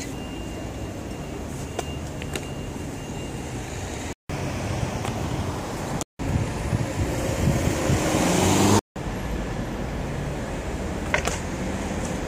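Urban street and traffic noise, a steady low rumble with a vehicle passing that grows louder around seven to nine seconds in, broken by short sudden silences where clips are joined.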